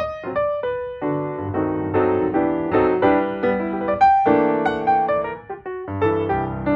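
Background music: piano playing a gentle melody over chords.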